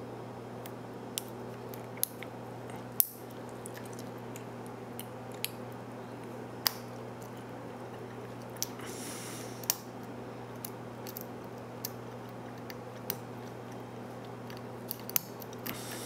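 Sparse, sharp metallic clicks of a lock pick working the serrated pin tumblers of a Brinks 527 padlock, about one every second or so, with a brief scrape near the middle. A steady low hum runs underneath.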